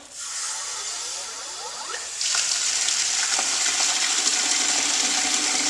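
Water running out of a frost-proof yard hydrant as it is opened. It starts as a hiss, then about two seconds in jumps to a loud, steady gushing flow.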